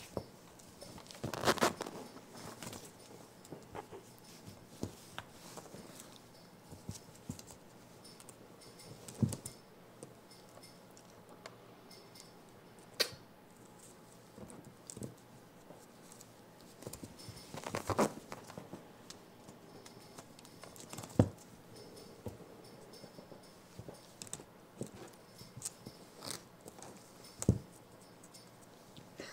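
A baby capuchin monkey scrambling about and pawing at a mirror: scattered light taps, knocks and rustling of the blanket beneath her, with a few sharper knocks now and then.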